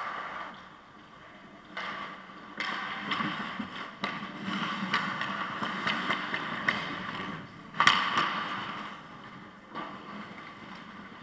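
Ice hockey play close to the net: skate blades scraping and carving on the ice in rising and falling swells, with stick clicks and a sharp knock about eight seconds in, the loudest sound.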